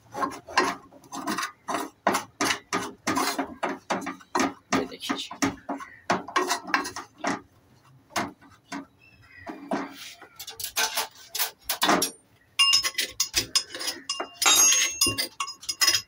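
Metal spoon stirring and scraping dry flour round a metal pot in quick repeated strokes while it is roasted. Near the end the spoon also knocks against the pot, which rings with a metallic clink.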